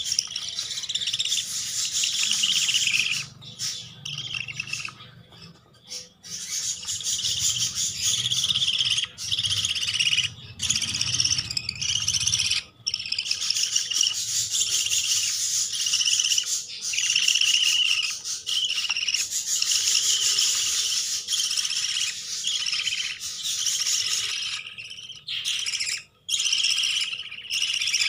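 Young parakeet chicks calling: a near-continuous high-pitched chirping with a few short breaks.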